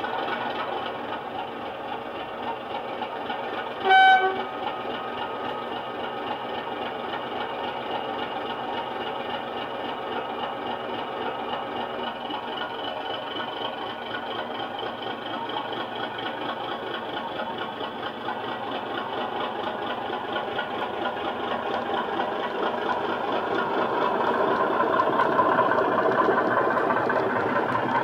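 DCC sound decoder in a model Class 37/9 diesel locomotive, playing a Mirrlees engine sound through an EM2 speaker: the engine runs steadily, with a short horn blast about four seconds in. In the second half the engine grows louder as the locomotive pulls away.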